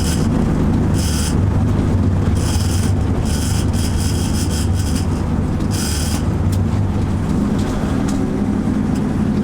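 A motor running steadily with a low hum, with a few short, high-pitched hissing bursts over it.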